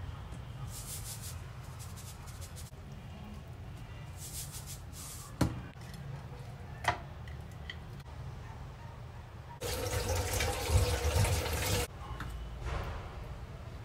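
Kitchen tap running for about two seconds near the end, water splashing, then shut off. Before it come light rustling of hands handling food and two sharp clicks, about a second and a half apart.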